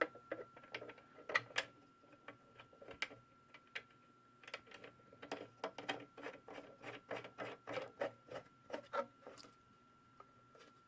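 Faint, irregular clicks and light knocks of a small benchtop belt sander being handled and moved on the bench. A faint steady high hum sits underneath.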